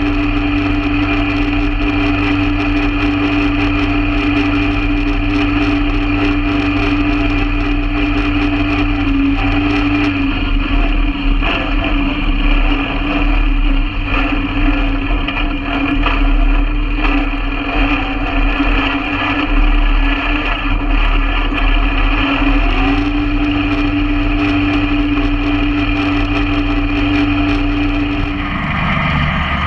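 Kubota B7001 compact tractor's small two-cylinder diesel engine running steadily while the tractor drives along at a constant pace. Its engine note shifts shortly before the end.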